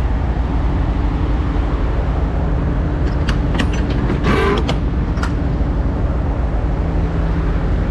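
Peterbilt semi truck's diesel engine running steadily, heard as a constant low rumble with a hum. A few clicks and a short higher sound come around the middle.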